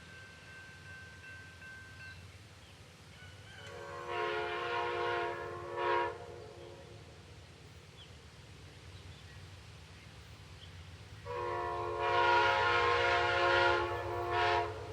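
Amtrak locomotive's Nathan K5LA five-chime air horn sounding twice, each time a long blast followed by a short one, the second sequence louder and longer. A low steady rumble runs underneath and grows near the end.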